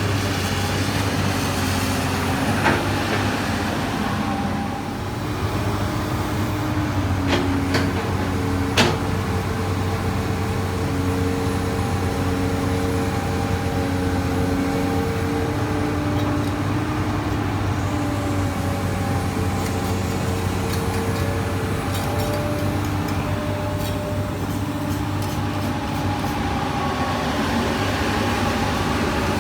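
Komatsu PC200 hydraulic excavator working: its diesel engine runs steadily under a hydraulic whine that shifts in pitch as the arm and bucket move. A few sharp knocks about 3, 7 and 9 seconds in.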